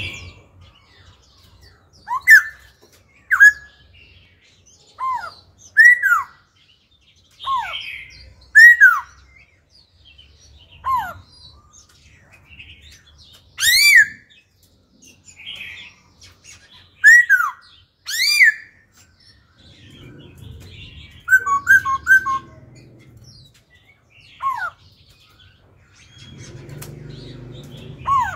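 Caged black-throated laughingthrush singing loud, clear whistled notes, most sliding sharply down in pitch, one every second or two, with a short run of quick repeated notes about three-quarters through. A low rumble sits underneath near the end.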